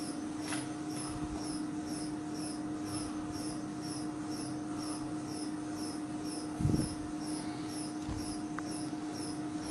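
Testing machine running during a four-point bending test: a steady hum with a faint high chirp repeating about three times a second, and one dull thump about two-thirds of the way in.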